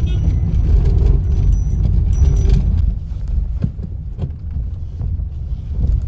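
A car's engine and tyres on a rough dirt track, heard from inside the cabin as a steady low rumble that gets a little quieter about halfway, with a few short knocks just after the middle.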